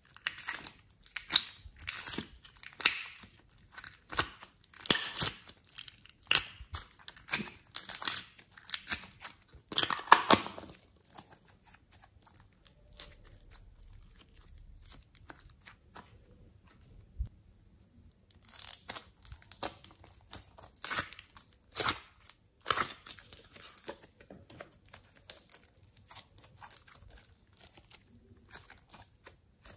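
Glossy slime mixed with clay being squeezed, folded and stretched by hand, giving sticky crackles and pops. The crackling is dense for the first ten seconds, thins out, and comes back in a second flurry about two-thirds of the way through.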